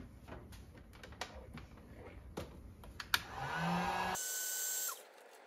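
A few light clicks and taps from handling small plastic parts, then an electric heat gun runs with a steady blowing whine for about a second and a half before it is switched off, warming the end of black poly irrigation tubing.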